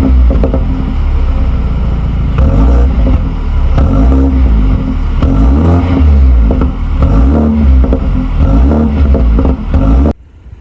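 BMW 428i's stock 2-litre turbocharged four-cylinder engine being revved repeatedly, its pitch rising and falling several times. It cuts off suddenly near the end.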